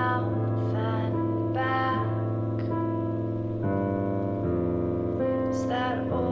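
Digital keyboard playing held chords with short higher melody notes over them; the chord changes three times in the second half.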